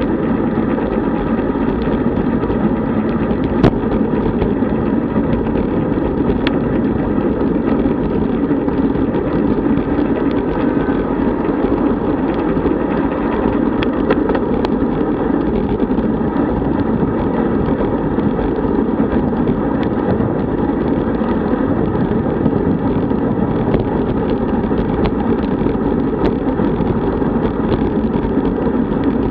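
Steady rush of wind over the microphone of a camera riding on a road bike at speed, mixed with tyres rolling on asphalt. A single sharp click comes about three and a half seconds in.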